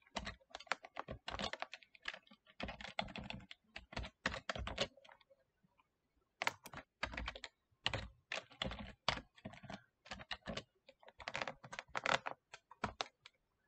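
Typing on a computer keyboard: quick runs of keystrokes, with a pause of about a second and a half near the middle.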